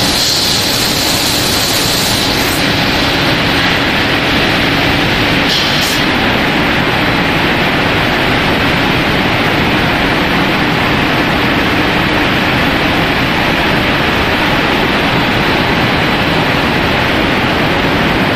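Running rice extrusion production line: a steady, loud machinery noise, like a rushing hiss, with no breaks.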